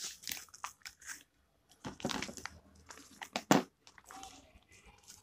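Foil-backed zip-lock pouch crinkling and rustling as it is handled, in irregular crackly bursts with a sharp snap about three and a half seconds in.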